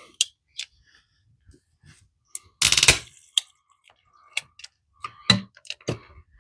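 Hand pipe cutter working on a water pipe: a run of sharp clicks and short scrapes, with one loud crunch about three seconds in as the blade bites through, then a few more clicks.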